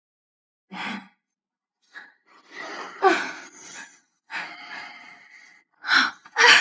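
A woman's breathy sighs and gasps, a string of short separate breaths starting about a second in, with one falling moan around the middle.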